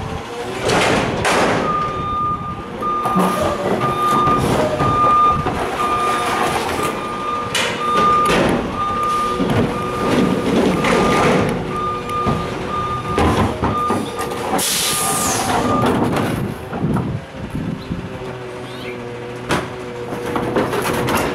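Garbage truck's reversing alarm beeping steadily, about twice a second, over its idling diesel engine, stopping a little past the middle with a short hiss of air just before. Loose clunks of bags and cans going into a metal dumpster run through it.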